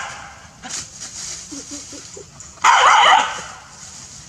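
Dog barking up a tree at monkeys: the tail of one bark at the start, then one loud bark a little under three seconds in.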